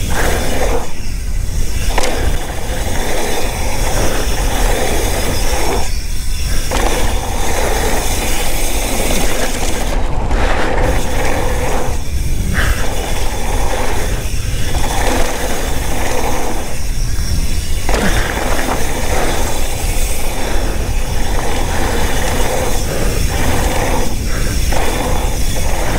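Mountain bike descending a dirt downhill trail at speed: steady rushing noise of the tyres on dirt and wind on the camera microphone, with the bike's chain and parts rattling over the bumps.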